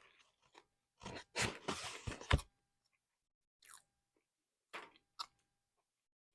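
A person chewing crunchy food, a dense run of crunching from about one to two and a half seconds in, then a few single softer chews.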